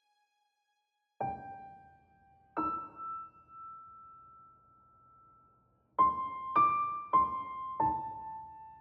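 Slow, sparse solo piano music. A held note fades out at the start, then two single notes ring out a few seconds apart, and four notes follow in quick succession about six seconds in, each left to ring.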